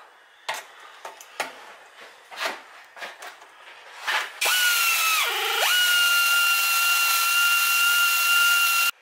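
A few light clicks and knocks from handling the intake hose and clamp. Then, about halfway in, a handheld power tool starts running with a steady whine and hiss. Its pitch sags briefly as it takes load, it runs on evenly, and it cuts off sharply near the end.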